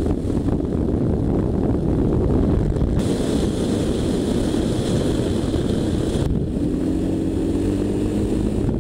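Honda V-twin adventure motorcycle riding on gravel: engine running under dense wind and tyre noise on the microphone. The sound changes abruptly twice as one riding clip cuts to the next, with a hiss in the middle stretch and a steady engine note rising slightly near the end.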